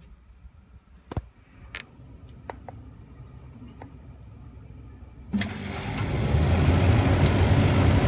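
Compact Carrier air-conditioner condenser starting up: after a few sharp clicks, the outdoor unit kicks on suddenly about five seconds in, and its running noise, with a strong low hum, builds over about a second and then holds steady and loud.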